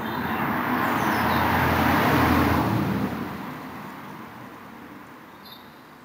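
A road vehicle passing by: a broad rumble that swells to its loudest about two seconds in, then fades away. Faint bird chirps sound near the start and near the end.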